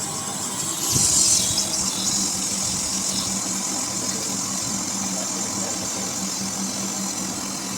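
Wire EDM machine running through a cut: a steady high hiss with a steady low hum, the hiss surging louder for about a second near the start.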